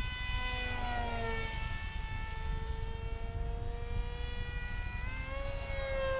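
Whine of an electric RC F-22 model jet's motor in flight, its pitch dipping about a second in, holding steady, then rising near the end and dropping again as the throttle is worked. A low steady rumble of wind on the microphone runs underneath.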